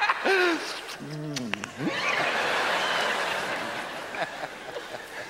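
A man's brief laughing vocal sounds, then a studio audience laughing in a wash that swells about two seconds in and slowly fades.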